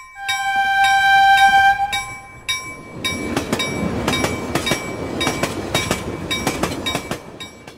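A train horn sounds a held note for about two seconds, then a train passes close by, its wheels clacking over the rail joints under a steady rumble, until the sound cuts off near the end.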